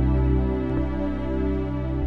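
Background music: soft new-age music with sustained, held chords.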